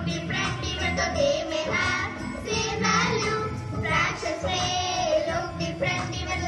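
Group of children singing a song about fractions together, with musical accompaniment.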